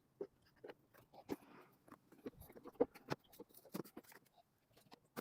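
Scattered light clicks and knocks of plastic trim and connectors being handled and pushed into place under the base of the windscreen.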